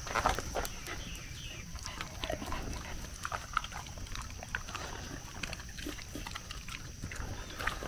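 Dogs eating treats taken from a hand: scattered short crunches and clicks of chewing, with snuffling.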